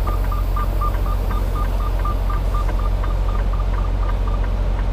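Semi-truck engine running with a steady low rumble while the tractor slides the trailer tandems. Over it, a rapid electronic warning beep repeats about four times a second and stops about four seconds in.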